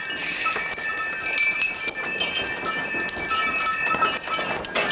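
Many small bells hung on the necks of goats jingling and clinking irregularly, several ringing at once. Each nanny goat is belled so the free-ranging herd can be found on the hill.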